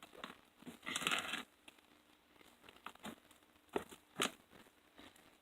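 Foam slime being handled and pulled apart, giving soft crackling and tearing sounds, with a couple of sharp clicks near the end.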